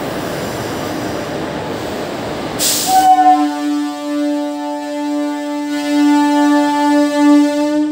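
Steady train noise, then a brief hiss about two and a half seconds in. From about three seconds in, a train horn sounds one long, steady note and holds to the end.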